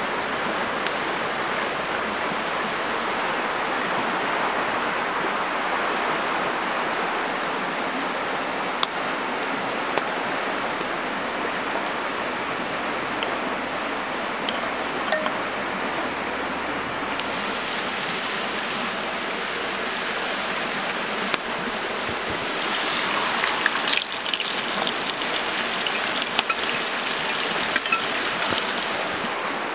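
Campfire burning with a steady hiss and occasional sharp crackles. About three-quarters of the way through, a louder, denser sizzle full of fine crackles sets in: eggs and tomatoes frying in a pan over the fire.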